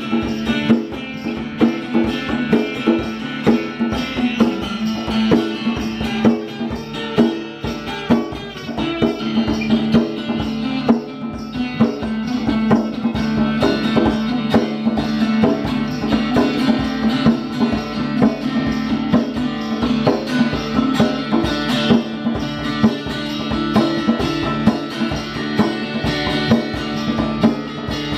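Acoustic guitar and djembe playing together, the guitar over a steady hand-drummed djembe rhythm.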